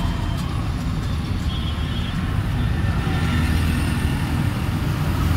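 Road traffic with heavy container trucks passing: a steady low rumble of engines and tyres, a little louder in the second half.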